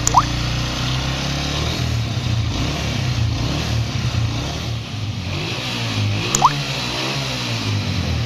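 Honda CG 125's single-cylinder four-stroke engine running steadily, with a short rising squeak just after the start and another about six seconds in. The engine is being taken apart because it makes extra internal noise.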